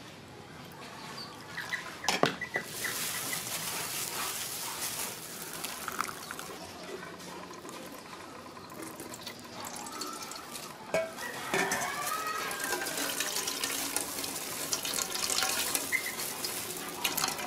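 Coconut milk, squeezed from grated coconut, pouring and splashing through a wire-mesh strainer into an aluminium pot, with a sharp knock about two seconds in.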